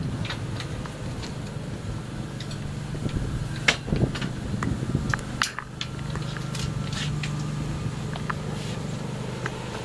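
Scattered knocks and clicks of solar modules and their fittings being handled and set down on steel strut racking, several close together about four to five seconds in. A steady low machine hum runs underneath.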